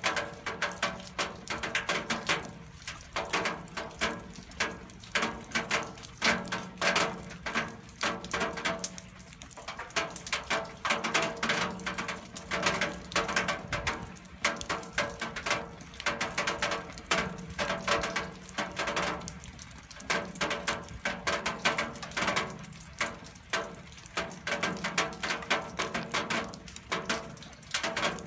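Rainwater hitting metal: a dense, irregular patter of many drops striking the surface, with a faint steady ringing tone underneath.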